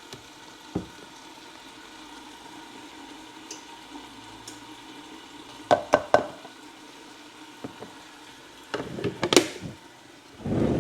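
Potatoes and onions frying in a covered skillet, a steady low sizzle, broken by a few sharp knocks and clatters about six seconds in and again near nine seconds.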